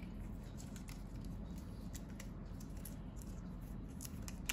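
Faint handling noise as a rubber gasket is worked onto a plastic sharkfin antenna base by hand: light rubbing with scattered small clicks, a slightly sharper click near the end, over a low room hum.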